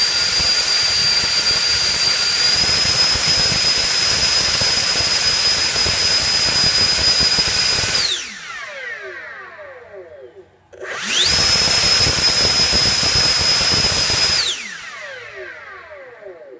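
A Change Sun CS10 70 mm electric ducted fan, driven by a Turnigy L2855 2100 kV motor on a 5S pack, running at high speed: a loud steady high-pitched whine over rushing air, which steps up slightly in pitch about two and a half seconds in as the rpm climbs. About eight seconds in it is throttled off and spools down in falling tones, then about three seconds later it runs up fast to high speed again and spools down once more near the end.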